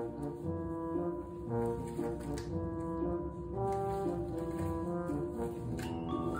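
Background music: a slow melody of held notes over a sustained low accompaniment.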